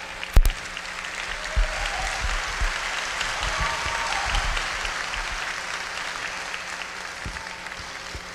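Congregation applauding in a hall. The clapping swells over the first few seconds and then slowly dies away. There is a sharp knock about half a second in.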